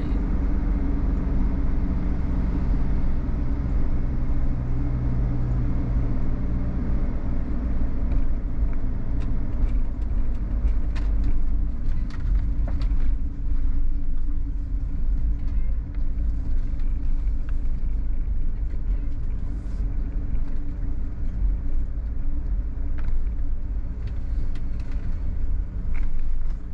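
Mercedes-Benz Sprinter motorhome driving on the road: a steady engine and tyre rumble, a little louder in the first few seconds, with a few faint clicks and rattles.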